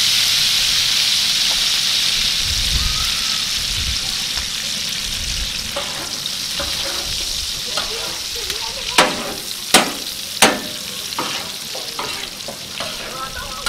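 Chicken pieces sizzling in hot oil on a large metal tawa, the sizzle easing slowly. From about halfway a metal spatula scrapes and clacks against the pan, with three sharp clacks, the loudest sounds here.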